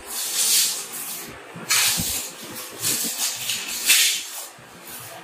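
Clear plastic wrapping being pulled and torn off a cardboard parcel, crinkling and rustling in several bursts, the loudest about four seconds in.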